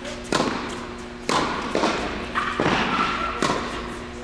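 Tennis balls struck by rackets and bouncing on an indoor hard court, a sharp impact about once a second, each echoing in the hall. A faint steady hum runs underneath.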